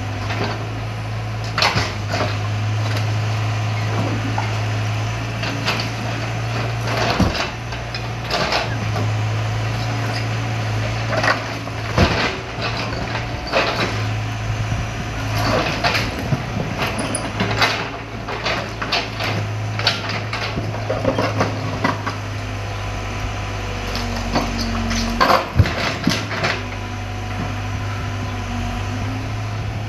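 Excavator engine running with a steady low drone while its bucket scrapes and pushes broken brick and concrete rubble, with irregular knocks and clatter of masonry throughout.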